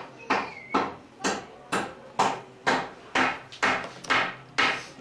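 Steady rhythmic knocking, about two strikes a second, each strike ringing briefly.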